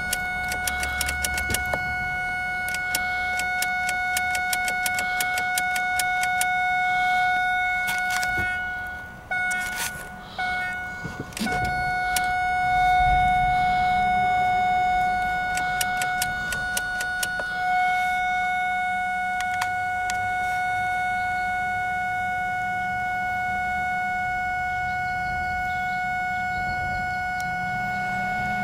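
2001 Ford Focus warning chime sounding as one continuous steady tone instead of chiming, with sharp clicks through the first half and short dropouts of the tone about ten and seventeen seconds in. The constant chime comes with the ignition acting as if the key is off: the car's no-start fault.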